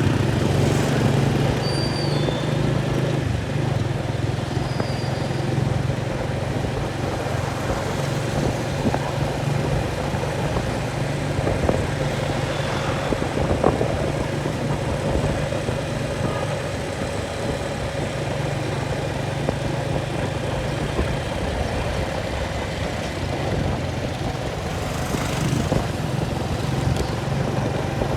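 An engine running steadily with an even low hum, holding the same pitch throughout.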